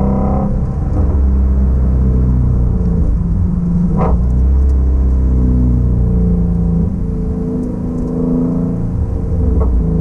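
2016 Shelby GT350's 5.2-litre flat-plane-crank V8, heard from inside the cabin at a gentle cruise. Its note drops in pitch about half a second in, runs fairly steady, then climbs again over the last few seconds as the driver feeds in throttle.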